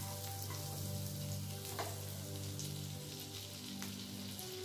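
Butter melting and sizzling in a hot nonstick pan: a soft, steady frying hiss with a few faint crackles.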